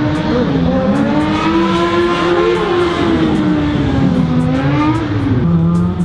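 Car engines on the street, their pitch rising and falling slowly as they accelerate and pass, with two engine tones crossing near the middle.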